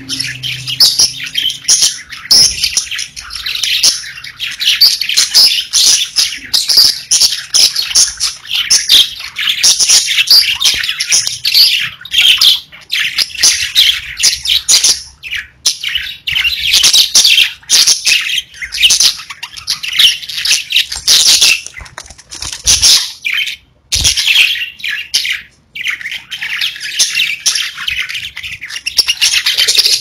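A group of pet budgerigars chirping and singing in a rapid, continuous, high-pitched chatter, with a couple of brief breaks about three-quarters of the way through.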